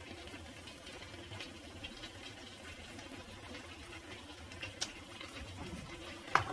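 Cream carbonara sauce simmering in a frying pan and pasta boiling in a pot beside it: a faint steady bubbling with small pops, broken by a couple of sharp clicks, the louder one near the end.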